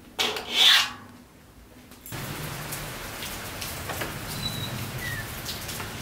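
A short, loud rustling swish about half a second in, then steady background ambience with a low hum, scattered faint clicks and two brief high bird chirps.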